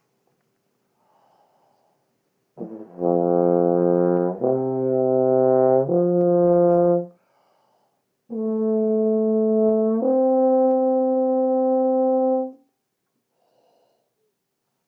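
Brass instrument played on the fourth valve in a slow lip slur exercise: notes joined by slurring rather than tonguing. A first phrase about three seconds in moves down a step and back up, and a second phrase about eight seconds in holds a note then slurs up to a higher one, each ending cleanly.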